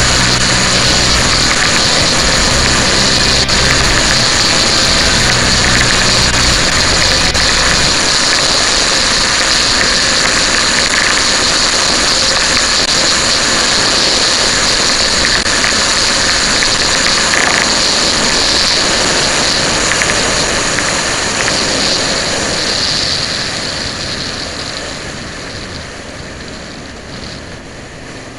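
Wind rushing over the on-bike microphone at road speed, with the Honda VTR1000F Firestorm's V-twin engine running underneath. About three-quarters of the way through, the sound steadily grows quieter as the bike slows.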